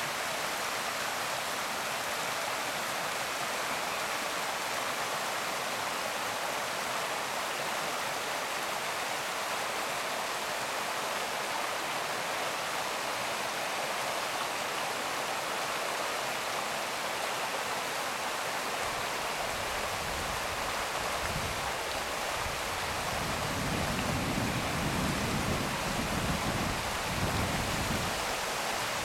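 Rushing water of a small rocky stream running over rapids and stones, a steady hiss. About twenty seconds in, a low, uneven rumble joins it.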